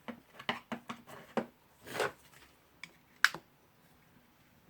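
Small clicks, knocks and a brief scrape of rotary hammer parts being worked into place by hand, with one sharp click a little past three seconds in.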